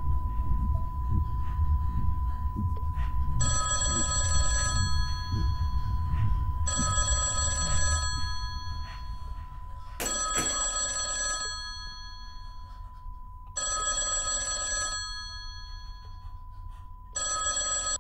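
A phone ringtone ringing five times, each ring a little over a second long and coming about every three and a half seconds: an incoming call. A thin steady tone runs underneath throughout.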